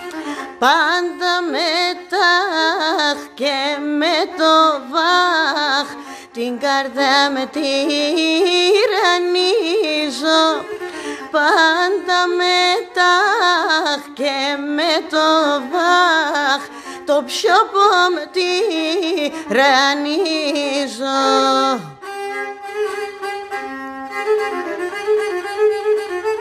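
Pontic lyra (kemenche) bowed in a traditional dipat tune while a woman sings with it. About 22 seconds in, the singing stops and the lyra carries on alone in steadier held notes.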